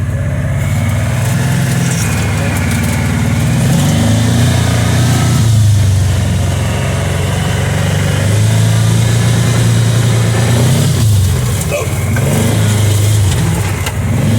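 2022 Kawasaki Teryx 800 side-by-side's V-twin engine running while driving, its pitch rising and falling with the throttle and dipping about eleven seconds in. A steady rush of noise from the moving machine sits over it.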